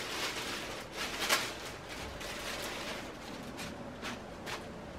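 Clear plastic garment bag crinkling and rustling as a piece of clothing is pulled out of it, with sharp crackles, the loudest about a second in.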